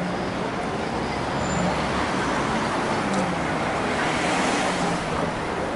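Road traffic on a busy city street: a steady wash of cars and buses going by, a little louder in the middle as a car passes close.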